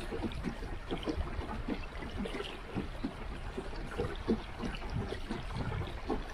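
River water gurgling and lapping against the side of a wooden boat under way, in small irregular splashes over a low rumble.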